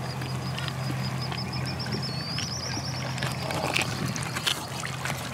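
A boat's engine running with a steady low hum, while a bird gives a rapid series of high chirps, about seven a second, that step up in pitch a little before halfway. A few knocks come in the second half.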